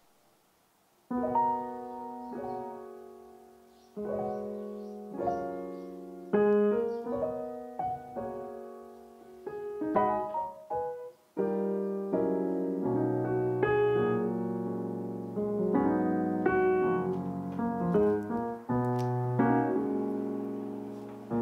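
Background piano music, struck notes and chords that each fade away, starting about a second in.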